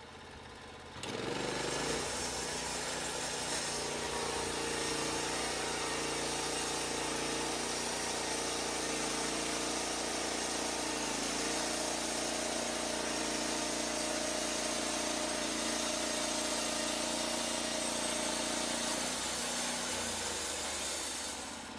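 Norwood Lumber Pro HD36 portable band sawmill running steadily, its motor driving the band blade. The sound starts about a second in, its pitch shifts about halfway through, and it drops away near the end.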